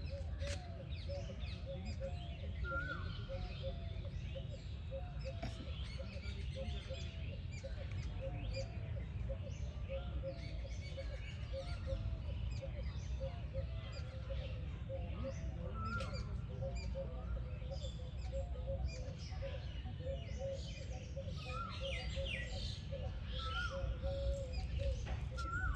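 Several birds chirping outdoors, with one short hooked call repeated every few seconds and a fast run of low pulsing notes throughout, over a steady low rumble.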